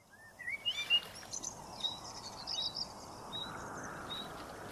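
Birds chirping, a string of short rising and repeated calls over a steady outdoor hiss, fading in from silence.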